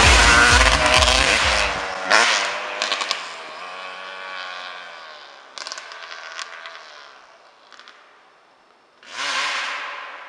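Yamaha YZ250 two-stroke dirt bike passing close by, then riding away down the trail, its single-cylinder engine fading into the distance with rising and falling revs and a few sharp clicks. About nine seconds in the engine revs up loudly again.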